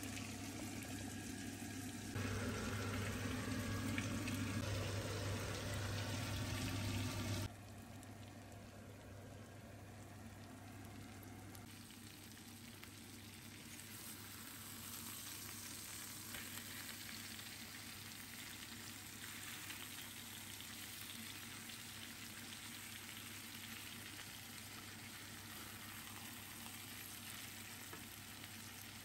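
A louder steady hum for the first seven seconds or so, then the faint, steady sizzle of minced-pork patties frying in fat in a frying pan.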